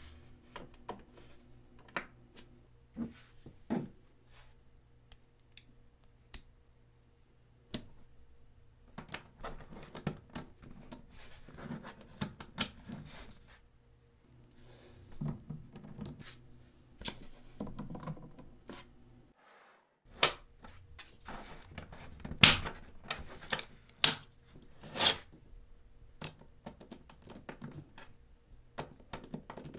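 Small neodymium magnetic balls clicking and clacking against each other as they are snapped together and pressed into place by hand, irregular sharp ticks with a few louder clacks in the last third.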